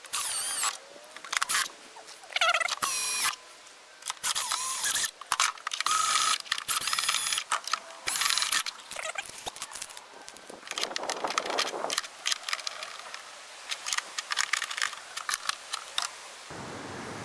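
Cordless drill driving screws in a string of short trigger pulls, its motor whine rising and falling with each burst. Later comes a run of light clicks.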